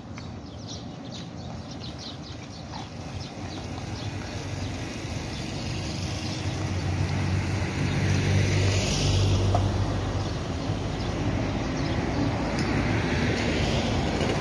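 Toyota Corolla police patrol car driving up and pulling in to a stop, its engine hum growing louder as it nears. A passing vehicle swishes by near the end.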